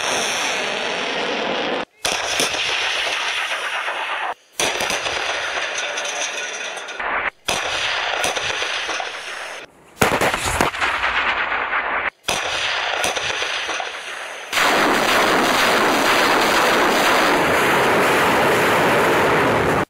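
Truck-mounted multiple rocket launchers (Uragan and Grad type) firing salvos, heard as a rushing roar of rockets leaving the tubes in short clips of a few seconds each, cut abruptly one into the next. About ten seconds in comes a sharp blast from tracked self-propelled howitzers firing. The last five seconds are a steadier, louder rocket salvo roar.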